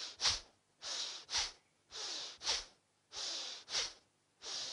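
Bhastrika (bellows-breath) pranayama: forceful breaths in and out through the nose with a hissing friction sound in the nostrils. A longer breath is followed by a short, sharp one, in about one cycle a second, with a brief pause between cycles.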